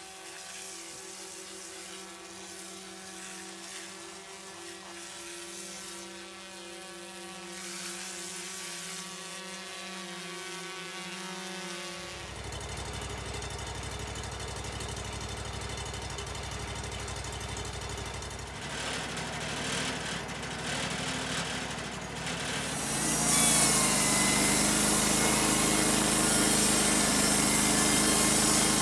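Wood-Mizer LT35 portable band sawmill running, its engine humming steadily at first. About 23 seconds in the band blade bites into an incense cedar log and the sound jumps to a much louder, hissing cut.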